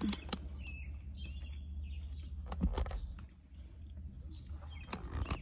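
A phone being handled and repositioned in its car mount, with scattered clicks and knocks over a low steady hum, and a few faint bird chirps from outside.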